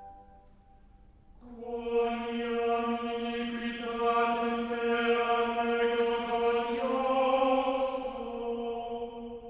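Slow ambient background music: after a quiet first second or so, a sustained chant-like drone swells in and holds.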